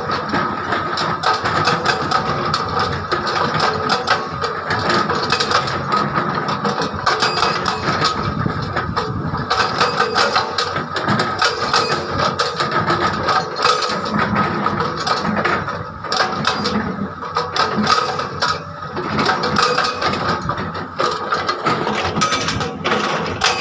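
Excavator-mounted hydraulic rock breaker hammering rock in a fast, continuous stream of blows, breaking large rocks down to size.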